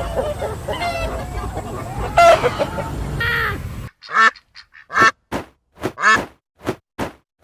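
Farmyard fowl calling over steady background noise. After an abrupt cut, ducks quack in short, separate calls, about ten in three seconds.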